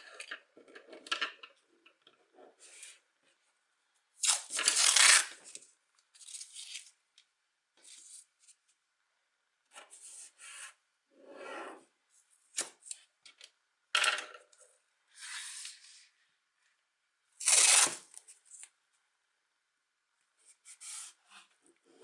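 Drawing strokes scratching across paper, in short separate scrapes with pauses between; the longest and loudest come about four to five seconds in and again near seventeen seconds.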